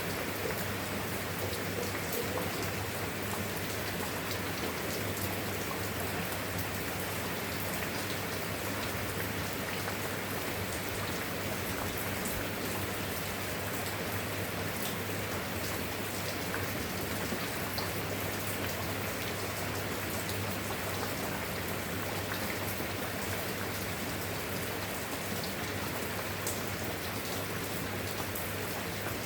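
Steady rain falling, an even hiss with scattered faint drop ticks that keeps the same level throughout.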